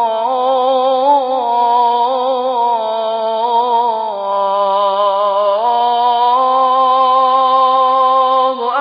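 A muezzin's voice holding the long, ornamented final note of "Allahu akbar" in an Egyptian-style call to prayer (adhan), wavering in melismatic turns. It sinks lower about four seconds in, climbs back about a second and a half later, and breaks off near the end.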